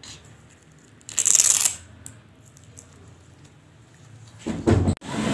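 A child's sandal's hook-and-loop strap ripped open once, a short noisy tear about a second in. A brief low thud near the end.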